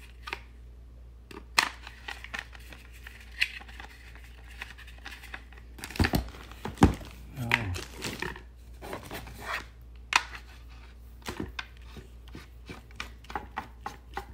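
Plastic pressure washer gun and wand parts being handled and set down on a crinkly plastic packing bag: scattered clicks and knocks with plastic crinkling, the loudest knocks about six to seven seconds in.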